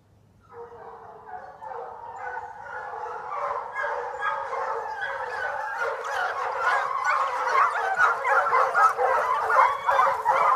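A pack of foxhounds in full cry, many voices baying and yelping over one another as they give tongue on a fox's scent. It starts about half a second in and grows steadily louder.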